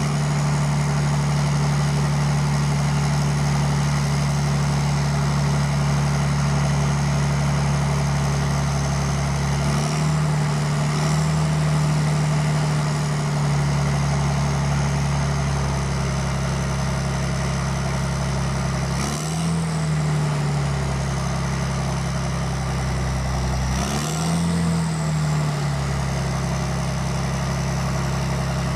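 Big turbo diesel engine of a heavy wheeled machine idling steadily, with three brief small rises in engine speed, about ten, nineteen and twenty-four seconds in, each settling back to idle.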